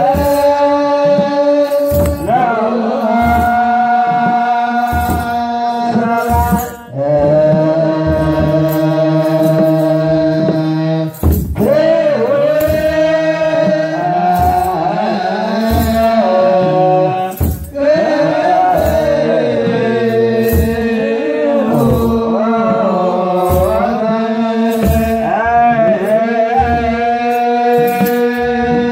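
Eritrean Orthodox clergy chanting a wereb liturgical hymn together in long held notes, with brief pauses between phrases. A kebero drum keeps a steady beat of about one stroke a second.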